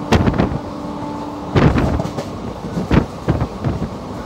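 Passenger train coach running, with a steady rumble and heavy knocks from the wheels and bogies passing over rail joints, some in quick pairs about every second and a half.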